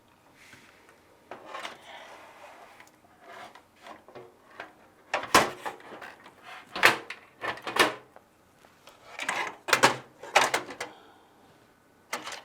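Hard plastic and metal PC case and fan parts being handled while fans are mounted: some scraping and rubbing, then a series of sharp clacks and knocks about halfway through.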